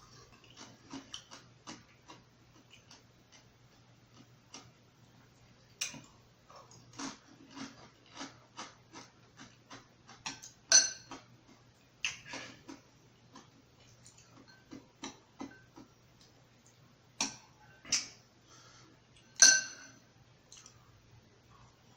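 Close-up eating sounds: chewing with wet mouth clicks and lip smacks at an irregular pace, broken a few times by a sharper clink of a utensil against a dish. A faint steady low hum sits underneath.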